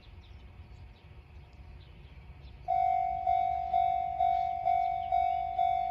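Railway level-crossing warning bell starting up about three seconds in. It rings a steady pitched clang about twice a second, each strike fading before the next, the signal that a train is approaching. Before it there is only a low background rumble.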